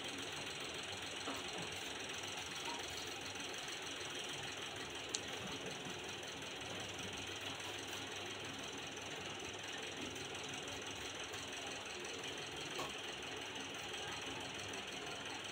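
Steady background hum and hiss, with faint soft sounds of dough being kneaded by hand in a steel plate and one sharp click about five seconds in.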